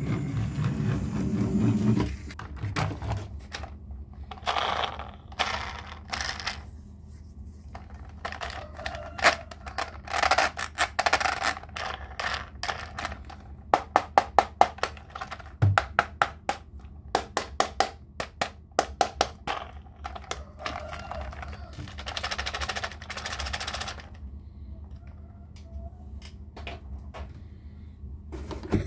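Small hard toys being handled: clicks, knocks and clattering, with short runs of quick clicks at about five a second midway.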